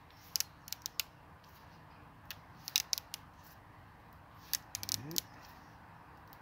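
Fresh hazel rod crackling as a thin weaver is peeled off it along a single growth ring while it is held under a bend: short clusters of sharp clicks and ticks, with a brief rising creak about five seconds in.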